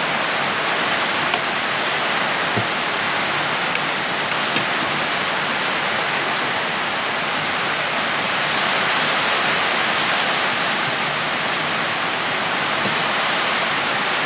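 Heavy rain on a corrugated metal roof: a steady, unbroken hiss.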